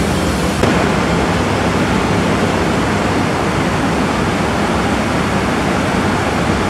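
Steady, loud din of sugar-factory process machinery. The noise changes abruptly about half a second in, then holds even.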